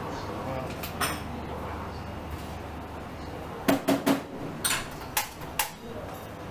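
Dishes and cutlery clinking at a café bar: a single click about a second in, then a run of sharp clinks, three in quick succession and three more spread out over the next two seconds, over a steady low background hum.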